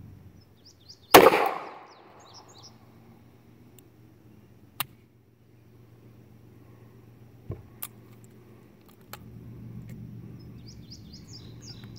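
One loud shot from a two-inch-barrel Taurus 415 revolver firing a .41 Magnum round, about a second in, with a short ringing tail. A few faint sharp metallic clicks follow as the revolver is worked. One round turns out to be a dud that the hammer struck but did not fire.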